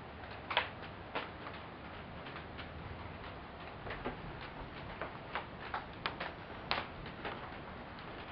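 Irregular sharp ticks of raindrops striking a hard surface close by, over a steady hiss of rain, during a heavy thunderstorm downpour.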